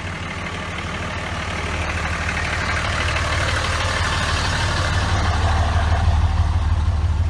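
Motor vehicle engine running steadily with a deep hum, growing gradually louder.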